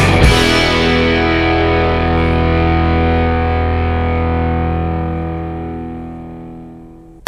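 Background rock music ending on a distorted electric guitar chord that rings on and slowly fades out.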